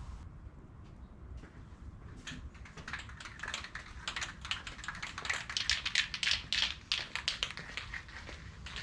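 Aerosol spray-paint can being shaken, its mixing ball rattling in quick irregular clicks that start about two seconds in, grow louder, then stop just before the end.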